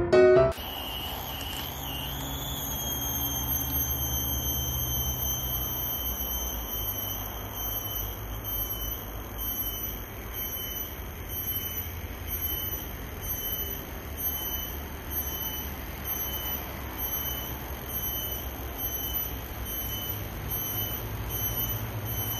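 A steady high-pitched whine with overtones rises slightly over the first two seconds, then holds evenly above a continuous low rumble of road traffic.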